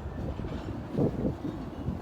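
Freight train rolling by as a low, uneven rumble, with gusty wind buffeting the microphone and a louder thump about a second in.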